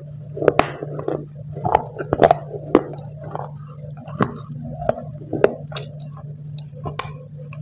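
Dry clay pieces crunching as they are bitten and chewed, with sharp, irregular cracks, mixed with small clinks as fingers pick through the chunks in a plastic tub.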